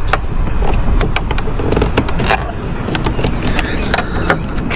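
Irregular clicks, knocks and scrapes of hands and tools working on parts in an engine bay, over a steady low rumble.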